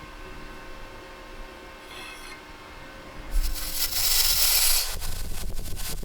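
Rasping scrape of metal being worked by hand, starting about three seconds in after a quiet stretch with a faint hum, and continuing in uneven strokes.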